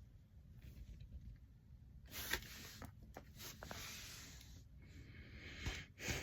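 Rustling and scraping of things being handled and moved close to the phone, in a few short spells with a couple of light knocks.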